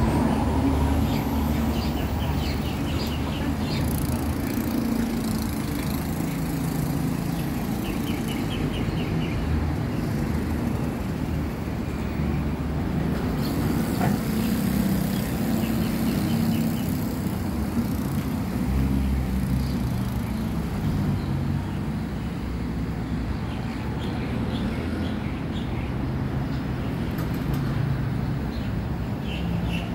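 Steady road traffic noise from cars and motorcycles passing on the road beside a railway level crossing, with short high chirps now and then.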